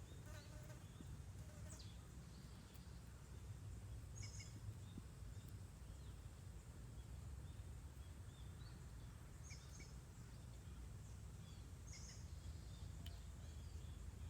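Faint outdoor ambience: a steady low rumble with a few short, high chirps every few seconds.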